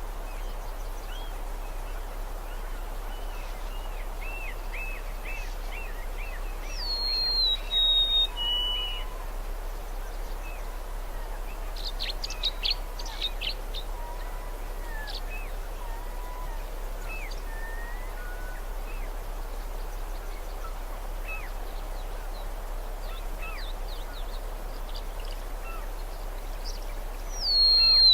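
Wild birds singing and chirping over a steady background hiss. A loud, clear song of a few stepped, falling whistled notes comes about seven seconds in and again at the very end, with runs of quicker, softer chirps and scattered calls between.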